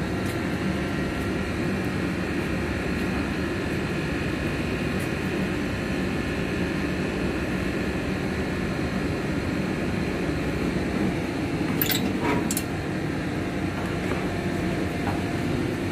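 A steady low machine hum, with two short sharp clicks about twelve seconds in.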